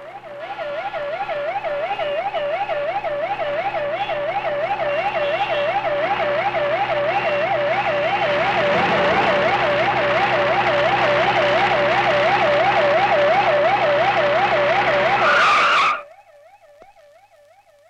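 Police siren wailing in a fast warble with a vehicle engine under it, growing louder as it approaches. A short burst of noise comes just before the siren drops away suddenly near the end, leaving only a faint warble.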